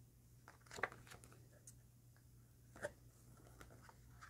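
Pages of a paperback pocket planner being leafed through: a string of faint paper flicks and rustles, the two loudest about a second in and near three seconds.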